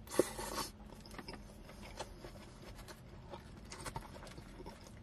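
A person biting into a shawarma wrap, with a sharp click and a short rustle in the first half-second, then chewing with small, irregular mouth clicks.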